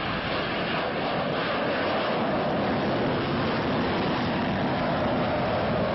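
Jet engine noise from a formation of F-16 fighter jets taking off and climbing away, a steady rushing noise that grows a little louder after the first second or so.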